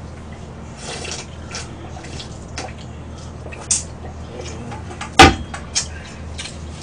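Wet slurping and eating noises from cold buckwheat noodles eaten out of a stainless steel bowl, with scattered small clicks and one sharp metallic clink about five seconds in, utensils or bowl against steel.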